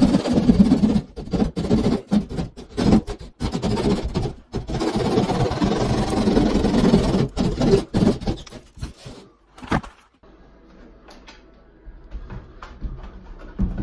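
Hand drywall saw rasping in quick strokes through a plasterboard ceiling as a square opening is cut out. It falls much quieter about ten seconds in, with a few light knocks as the plastic fixture housing is handled into the hole.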